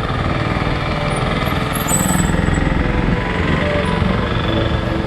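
Wind buffeting the microphone of a camera on a moving bicycle, a steady rough rumble, with road traffic around it.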